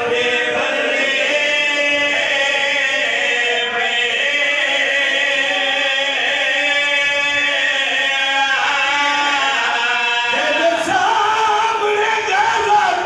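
A man chanting a lament in long held notes, his voice amplified by a microphone. About ten seconds in, the melody begins to waver and move more quickly.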